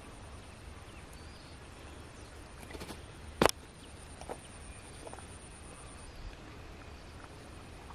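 Quiet outdoor background with a faint, steady high-pitched whine that stops about six seconds in, and one sharp click about three and a half seconds in, with a few fainter clicks around it.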